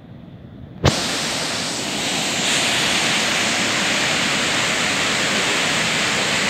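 Waterfall in full flood: a loud, steady rush of falling water that comes in abruptly with a click about a second in.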